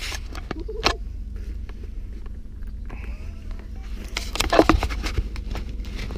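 Steady low rumble of a pickup truck's engine and road noise heard inside the cab. Scattered knocks and rustles ride over it, with a louder rough burst a little over four seconds in.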